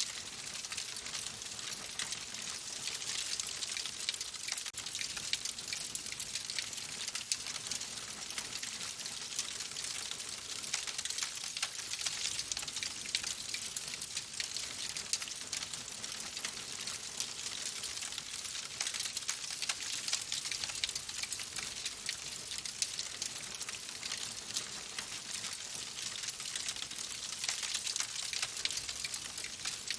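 Wood fire in a fireplace crackling steadily: a dense stream of small pops and snaps over a soft hiss.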